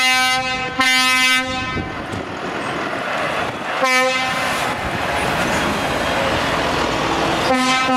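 Truck air horn sounding in short, steady-pitched blasts: one ending just as the sound begins, another about a second in, one about four seconds in, and one more starting near the end. Underneath runs the steady noise of a heavy truck with a loaded low-loader trailer driving past close by.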